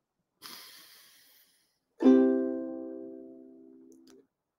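Ukulele: a soft scratchy noise about half a second in, then one strummed chord about two seconds in that rings for about two seconds before being cut off.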